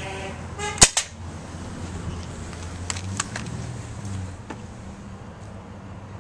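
A single sharp pistol shot fired down at a mobile phone about a second in, followed at once by a smaller crack, then a few light clicks.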